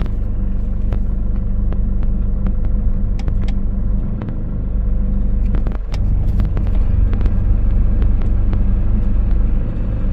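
Campervan engine running as the van pulls away and drives off, a steady low rumble with scattered clicks and two brief dips in the engine note about midway, heard from inside the cab.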